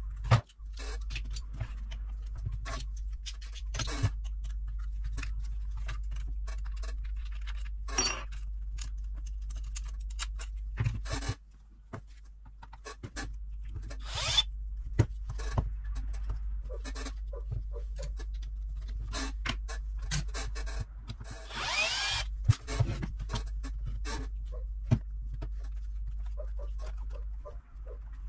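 Clicks, knocks and scrapes of plastic and metal parts being handled and set down while a cordless jigsaw is taken apart, over a steady low hum. Twice a cordless screwdriver briefly whirrs, backing screws out of the housing.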